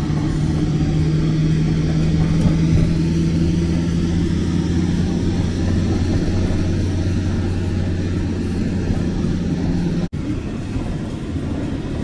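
Steady low hum of a car driving, engine and road noise heard from inside the cabin. The sound cuts out for an instant about ten seconds in.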